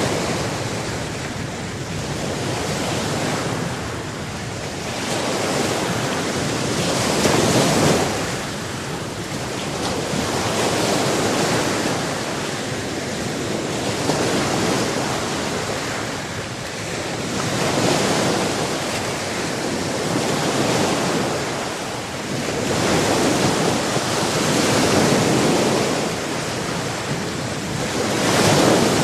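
Sea waves breaking on a shore, a steady rushing noise that swells and ebbs as each wave comes in, about every four or five seconds.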